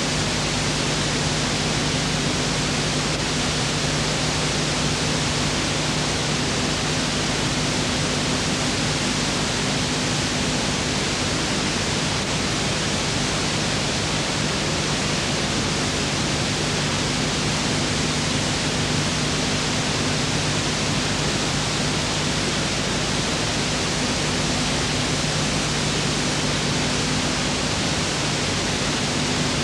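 Steady, unchanging hiss with a low electrical hum beneath it: the noise of an old film transfer that carries no sound of its own.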